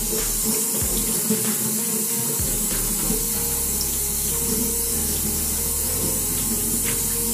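Faucet running steadily into a utility sink, the water splashing over a wet human-hair closure being rinsed by hand under the stream.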